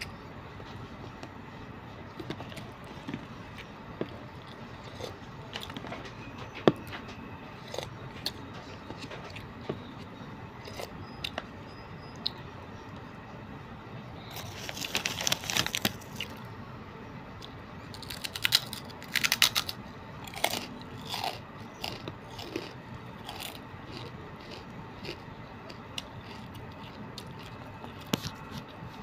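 Close-up eating: chewing, with scattered clicks of a plastic spoon against a plastic food container. Two spells of loud crunching, one about halfway through and another a few seconds later.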